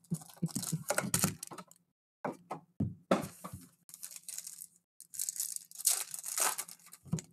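Foil wrappers of Panini Revolution trading-card packs being handled and torn open, crinkling and tearing in several bursts with short pauses between them.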